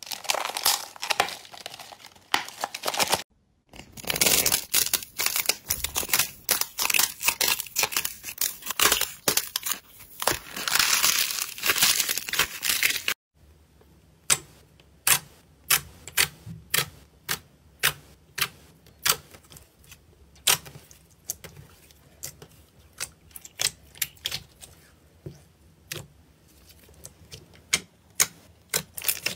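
Hands working thick pink slime: a dense crackling, tearing sound, with a short break about three seconds in. About halfway it cuts to separate sharp pops, one or two a second, as fingers press into clear blue glitter slime and squeeze air pockets out of it.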